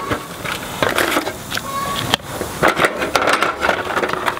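Tools and a tyre plug kit being handled in a red metal toolbox: a string of clicks, knocks and rattles of items against the sheet-metal box.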